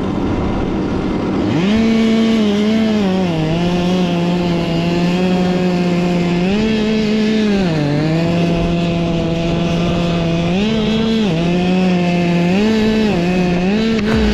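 Chainsaw running at high throttle through a cut. Its pitch dips and rises again several times as the saw is worked in the wood.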